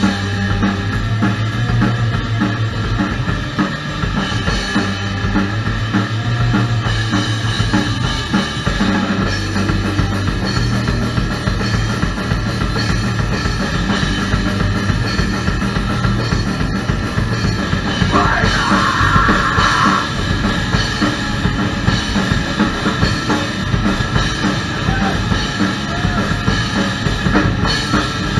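Live rock band playing loudly: a drum kit with bass drum and cymbals driving a steady beat under electric guitars, with sustained low notes that change every second or two.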